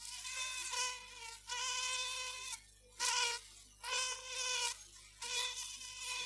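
Bee buzzing, a high buzz that comes in about five bursts of half a second to a second, with short breaks between them.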